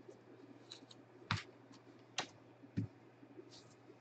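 Trading cards and packs being handled on a tabletop: three sharp taps about a second apart, two with a low thump, among faint soft rustling.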